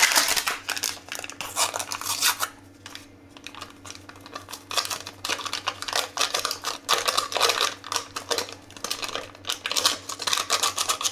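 Small paper sachets of baking powder and vanilla sugar crinkling and tearing as they are opened and shaken out, with light taps on the metal Thermomix mixing bowl. The sound comes in irregular clusters, with a quieter gap a few seconds in.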